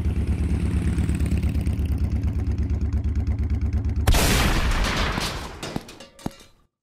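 An engine running steadily with a rapid pulse, then a single loud gunshot about four seconds in that echoes and dies away over about two seconds, with two faint clicks as it fades.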